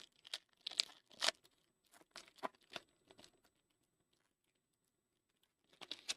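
Trading cards being handled: a run of soft crinkles, scrapes and clicks for about three seconds, a pause, then another short rustle near the end.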